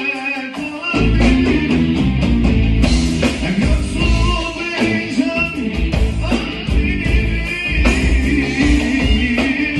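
A live band playing: after a thinner opening, the full band with a heavy low end comes in about a second in, a wavering melody line running above it.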